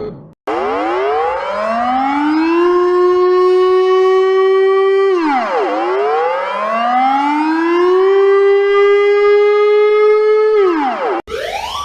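Civil defence siren winding up to a steady wail, dipping and winding up again to hold a second time, then winding down and cutting off. Just before the end a different alarm starts, a fast run of short rising whoops.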